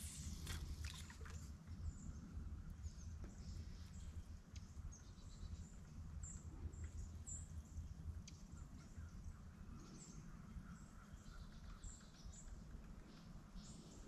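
Faint, scattered high bird chirps over a low steady rumble.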